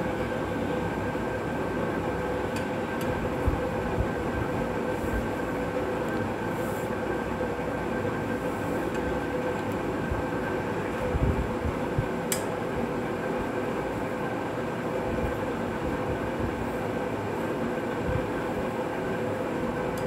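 A steady mechanical rumble with a constant hum, unchanging in level, and a single faint click about twelve seconds in.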